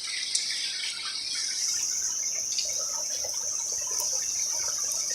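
Rain falling and dripping, with a steady high-pitched drone of insects that grows a little louder about a second and a half in.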